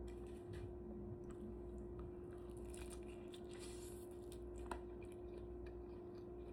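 Faint room noise: a steady hum with scattered small clicks and rustles, and one sharper click about three-quarters of the way through.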